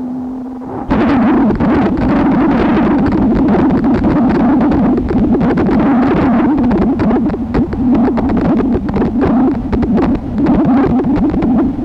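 Electronic noise drone built from no-input mixer samples played through noise-generator apps: dense crackling, hissing noise over a low hum. About a second in, a lone steady tone gives way to the crackling noise again.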